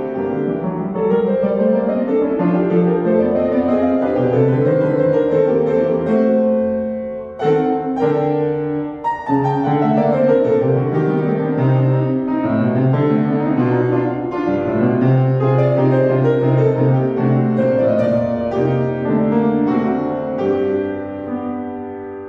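Solo piano played on a Kawai upright, full chords and running notes with a brief break about seven seconds in. Near the end the playing tapers off and the last notes ring away.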